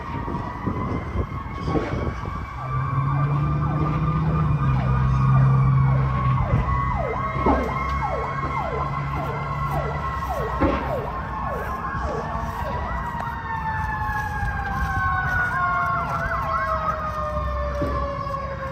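Fire apparatus sirens sounding. A steady wailing tone runs throughout. Over it, a rapid yelp of quick falling sweeps repeats two or three times a second through the middle. Near the end the siren pitch slides slowly downward.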